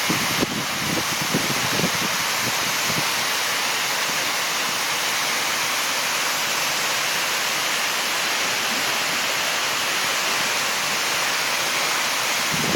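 Waterfall rushing in a steady, even roar of falling water. A few short low bumps on the microphone come in the first three seconds.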